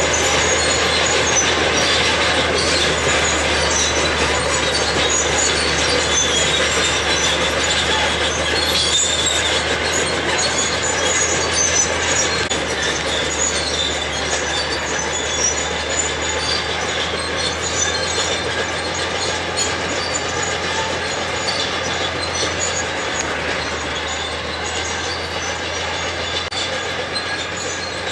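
Caterpillar D6 crawler dozer working: its diesel engine runs steadily under a constant clatter of steel tracks, with many short high squeals from the tracks. It grows slightly quieter toward the end.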